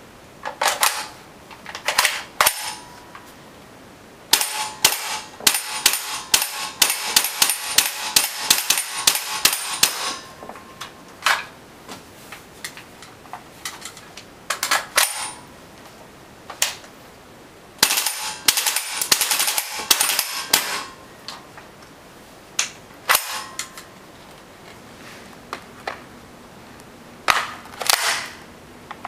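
WE SCAR gas blowback airsoft rifle firing: single shots, then a long string of fast shots at about three to four a second, more single shots, and a second fast string in the middle.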